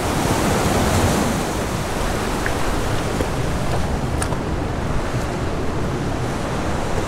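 Merced River water rushing steadily over a small cascade into a boulder-lined pool. A faint click about four seconds in.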